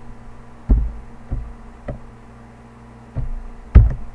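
Computer keyboard keystrokes: five dull thumps, three about half a second apart, then a pause and two more. A steady low electrical hum runs underneath.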